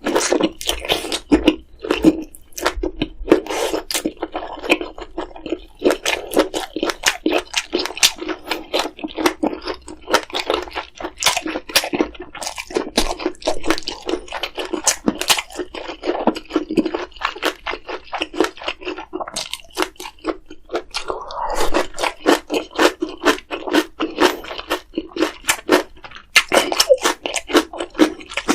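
Close-miked eating sounds: a person chewing and biting in a constant stream of crunchy, wet mouth clicks and smacks.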